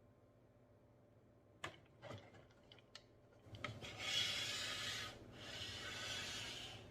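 Faint handling of toy pieces and packaging: a few light taps, then two long rubbing, scraping strokes of a couple of seconds each.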